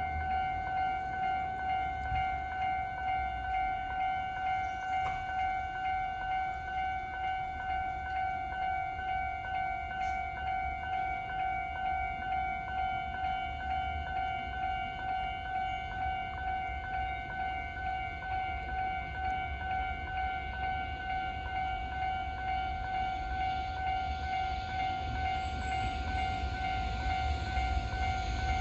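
Japanese level-crossing warning alarm ringing, an evenly repeated electronic ding on a steady pitch. Over the last few seconds the noise of an approaching train rises beneath it.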